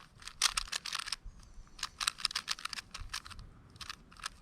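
3x3 Rubik's cube being scrambled by hand: quick runs of plastic clicks as its layers are turned, in three bursts with short pauses between.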